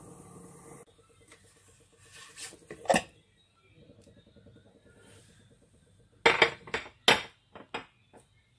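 Glass baking bowl knocking and clinking against the rice cooker's pot and a ceramic saucer as it is lifted out and set down: one sharp knock about three seconds in, then a quick run of clinks a little over six seconds in. A steady hum at the start cuts off within the first second.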